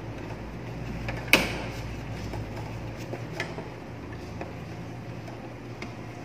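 Screwdriver clicking and scraping against the screw terminals of a thermal overload relay in a motor control panel as the faulty relay is taken out, with one sharp click about a second in and fainter ticks after, over a low steady hum.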